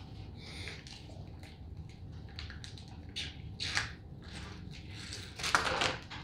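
Kool-Aid Jammers foil drink pouches crinkling as they are squeezed while being sucked dry through their straws: scattered short crackles and slurps, with a louder burst near the end.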